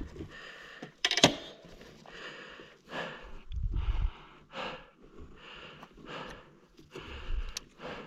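A person breathing hard in quick, regular breaths, with a sharp click about a second in and low wind rumbles on the microphone.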